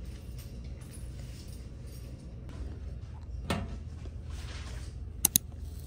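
A steady low rumble with a single knock about halfway through and two quick sharp clicks near the end.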